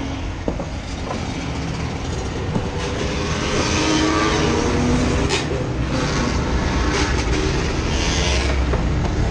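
Loud, steady rumbling and rattling noise that starts abruptly just before and grows louder about three seconds in.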